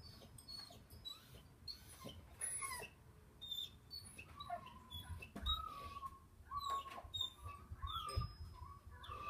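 Animal calls: short high chirps, then from about halfway a string of short, wavering squeaky calls, with a few soft low thumps.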